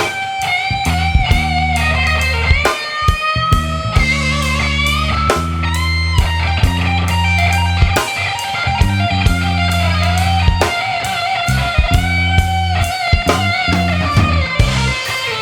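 Electric blues guitar solo: held lead notes with vibrato and some bent, gliding notes over a backing of steady bass notes and drums.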